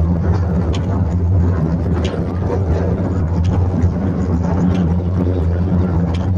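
Mask earloop welding machine running: a steady low motor hum with faint regular clicks a little over a second apart.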